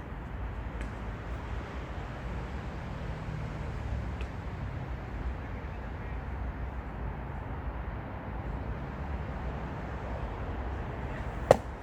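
Steady open-air background noise with wind rumble on the microphone. Near the end comes a single loud, sharp crack of a baseball impact with a short ring.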